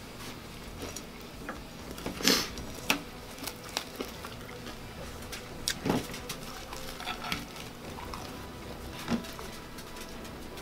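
Eating at a table: chewing, with scattered short clicks and taps of food and fingers against a plate. The loudest tap comes a little over two seconds in.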